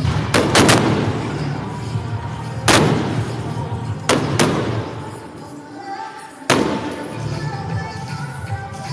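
Fireworks shells bursting in sharp bangs: a quick cluster of three near the start, then single bangs about 2.5, 4 and 6.5 seconds in, with music playing throughout.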